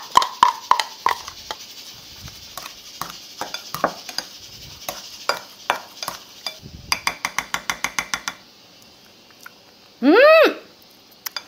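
Wooden spoon and kitchen scissors knocking, scraping and clinking against glass bowls while mixing seasoned pollock roe, with a quick run of clicks about seven seconds in. About ten seconds in comes a short, loud tone that rises and falls.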